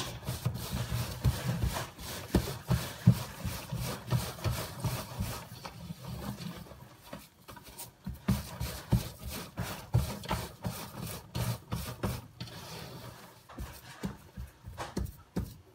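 Bare hands kneading a damp bulgur-and-isot çiğ köfte mixture in a dimpled metal pan: continuous rubbing and squashing with many short, irregular knocks. This is the long kneading stage that brings the mixture to consistency.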